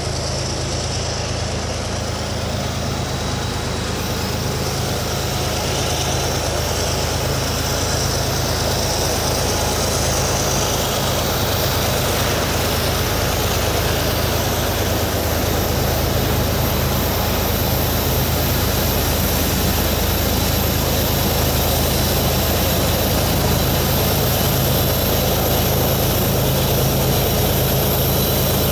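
Diesel-electric freight locomotives approaching under power, their engines a steady low drone that grows gradually louder as they come closer.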